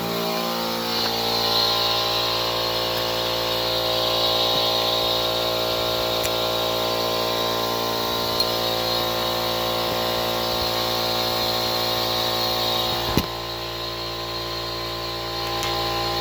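Electric air compressor running steadily with an even, many-toned drone, filling a portable air tank as the pressure builds toward 100 PSI. A single sharp click about 13 seconds in.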